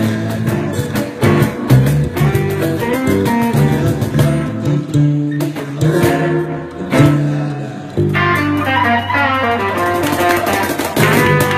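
Live instrumental duet of an electric guitar and an acoustic guitar: strummed chords with picked melody notes. About eight seconds in the low notes thin out and a higher picked line comes to the front.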